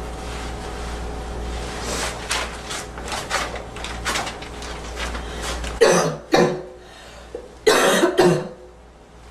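A girl coughing: a run of softer short coughs and throat sounds, then two loud double coughs in the second half.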